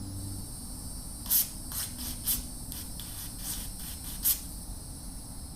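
Aerosol carburetor cleaner sprayed into a scooter carburetor's fuel inlet in short hissing bursts, about six of them, the strongest about a second in.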